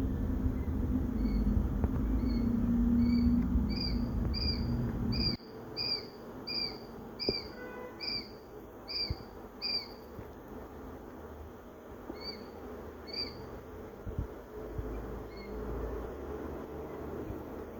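A baby quail chick peeping: a steady run of short, high peeps about one and a half a second for the first ten seconds, then a few scattered peeps. A low hum sits under the first five seconds and stops abruptly.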